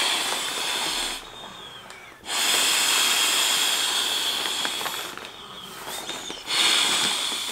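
Breath rushing into the valve of a Klymit Pillow X inflatable camping pillow as it is blown up by mouth: three long blows, with short pauses between them to draw breath.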